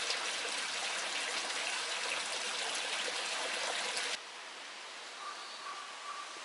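Water falling from the spout of a shrine purification fountain (temizuya) into its stone basin, splashing steadily, then cut off sharply about four seconds in. After that a quieter background remains, with a faint thin tone that comes and goes.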